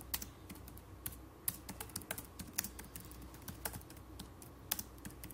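Typing on a computer keyboard: irregular clicking keystrokes, a few each second, over a faint low hum.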